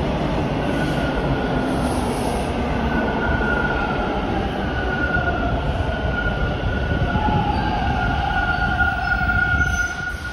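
TTC Bombardier T1 subway train running along the station platform: a loud, steady rumble of wheels on rail, with thin high-pitched tones coming and going above it. The noise drops off near the end.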